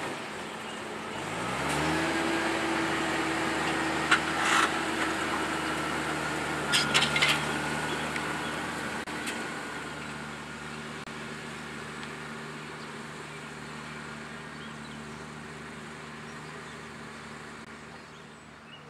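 Fendt 820 Vario tractor engine rising in pitch about a second and a half in, then running steady under load while it pulls a slurry tanker and injector. A few short clanks come around four and seven seconds in, and the engine slowly fades as the rig moves away.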